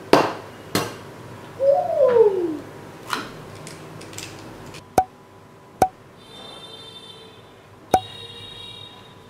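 Eggs being cracked against the rim of a ceramic bowl of rice: a few sharp knocks, then three crisp taps on the bowl with a short ring, a second or two apart. About two seconds in comes a short falling hooting sound.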